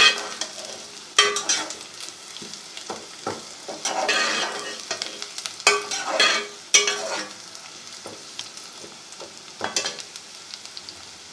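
Sliced onions sizzling as they fry on a high flame in a metal pot. A metal spoon stirs them, scraping and knocking against the pot every second or few, with one longer stir about four seconds in.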